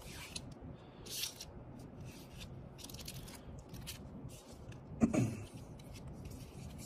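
Trading cards being picked up and slid across a playmat: several soft, short paper slides and rustles. About five seconds in, a brief low throat sound, the loudest moment.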